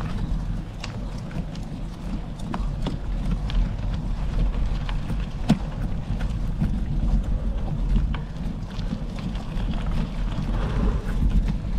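Gravel bike riding over rough gravel: a steady wind rumble on the action camera's microphone, with the tyres on loose gravel and the bike rattling in scattered clicks and knocks. One sharper knock comes about five and a half seconds in.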